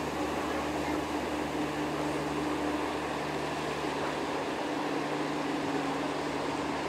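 A steady mechanical hum with a few held low tones under an even noise.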